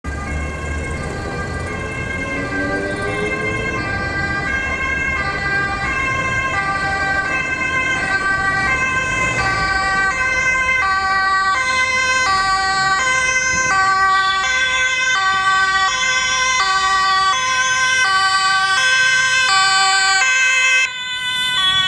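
Two-tone sirens of Dutch police vehicles, switching between a high and a low note, with more than one siren sounding at once out of step. They grow louder as the vehicles approach.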